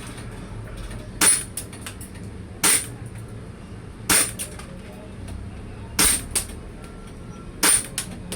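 Airsoft Glock 17 Gen3 replica pistol firing single shots at a slow, steady pace: five sharp cracks about one and a half seconds apart, several followed by a fainter click.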